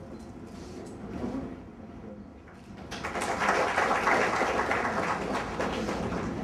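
Audience clapping in a hall, starting about three seconds in and carrying on as a dense, even patter.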